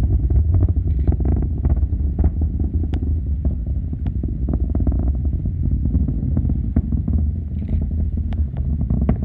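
Distant Falcon 9 rocket climbing: a steady deep rumble with irregular crackles running through it.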